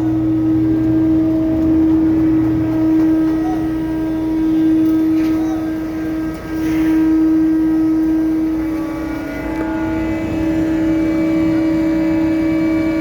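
Ship's cargo crane machinery running with a steady hum and a constant tone while lowering a container into the hold.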